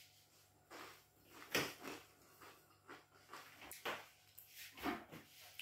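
Soft, scattered crunches of toasted bread being bitten and chewed, a few faint crunchy bursts a second or so apart.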